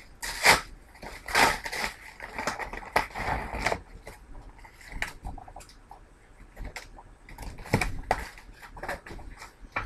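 Packaging torn open and handled by hand: irregular crinkling and rustling, densest over the first four seconds with a sharp crackle about half a second in, then sparser crackles and light knocks.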